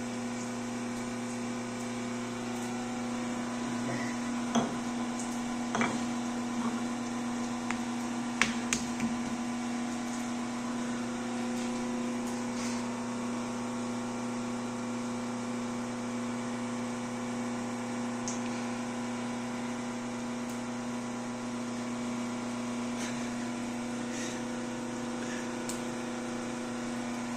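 Steady electrical appliance hum. A few sharp taps and knocks come about four to nine seconds in, from a small wooden rolling pin and hands working bread dough on a countertop.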